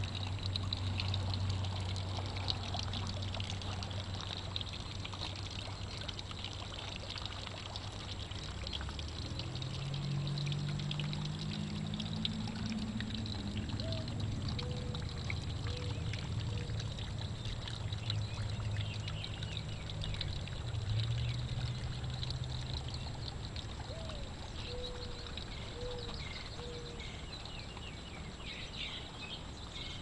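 Garden water fountain trickling and pouring steadily. A low engine hum rises and falls in the middle, and a short four-note bird call comes twice.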